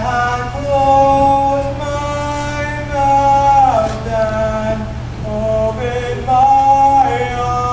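Mixed-voice a cappella choir singing slow, sustained chords with no accompaniment, swelling louder about a second in, around three seconds in and again near the end.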